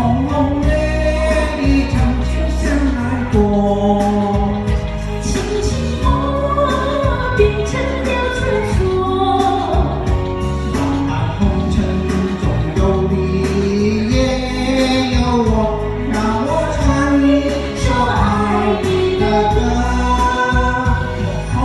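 A woman and a man singing a Mandarin pop love-song duet through handheld microphones over a karaoke backing track.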